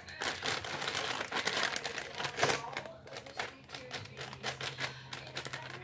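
Clear plastic bag crinkling as slime is picked out of it by hand, in an irregular run of crinkles and small clicks.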